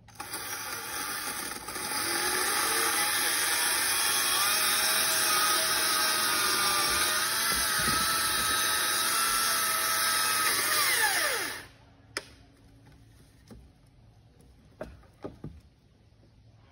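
Bad Boy battery chainsaw running for about eleven seconds, its whine wavering in pitch, then winding down with a falling whine and stopping. A few light knocks follow.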